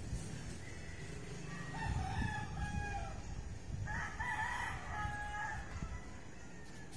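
Rooster crowing twice: a call about two seconds in and a longer, wavering one about four seconds in, over a low steady rumble.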